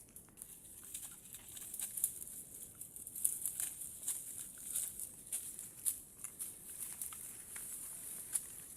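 Footsteps through dry leaves and brush: irregular crackling and rustling, several small snaps a second.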